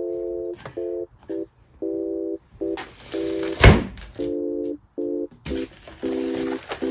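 Sewing machine running in short, irregular stitching bursts: a steady hum of one pitch that starts and stops abruptly a dozen or so times. A single sharp knock comes about halfway through.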